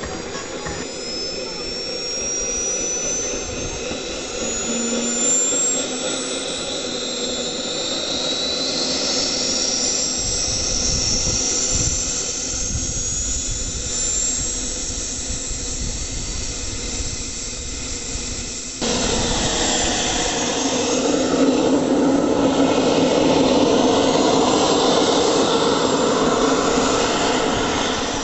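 Small turbine engine of a large radio-controlled scale model jet, an L-39 Albatros, spooling up, its high whine climbing steadily in pitch. About two-thirds through the sound changes suddenly to a louder, rushing jet noise as the turbine runs at higher power for the take-off roll.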